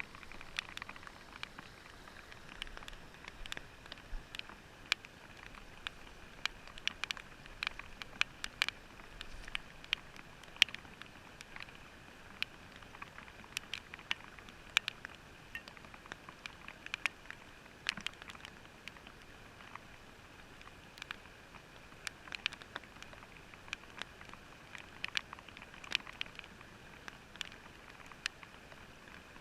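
Irregular small clicks and taps, several a second, over a faint steady hiss, all muffled through a watertight action-camera housing.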